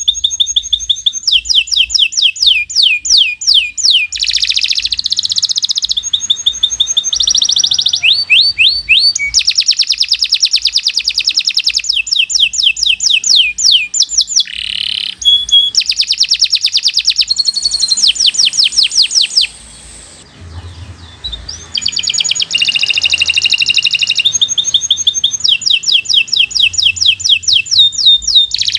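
Domestic canary singing a long, continuous song of fast trills and rolling phrases, high-pitched, with one short pause about two-thirds of the way through.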